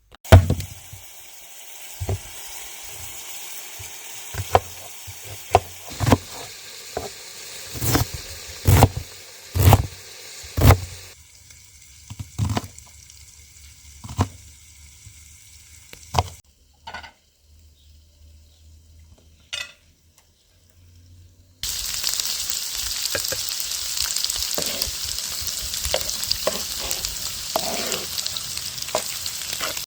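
Food frying in a pan: a steady sizzle broken by many sharp knocks for the first ten seconds or so, then a few scattered knocks and a near-silent gap. About 22 seconds in, a loud, dense sizzle starts and runs on steadily.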